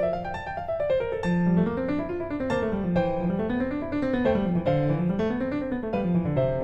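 Background piano music: flowing arpeggios rising and falling about once a second.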